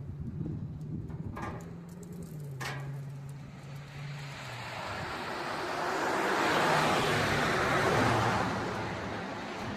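A motor vehicle's engine running, then a vehicle passing, its noise swelling to a peak about two-thirds of the way through and fading away.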